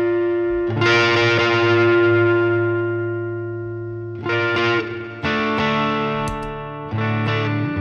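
Electric guitar, a Telecaster, played through a Hudson Broadcast–clone germanium preamp pedal in its high-gain overdrive mode. About four chords are struck and left to ring out and fade.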